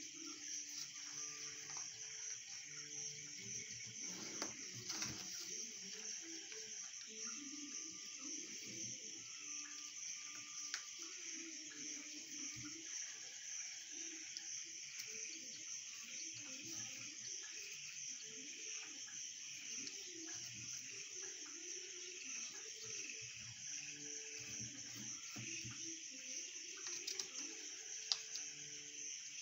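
Faint hand-folding of a sheet of paper: soft rustles and a few light taps and creases, over a steady high-pitched background drone.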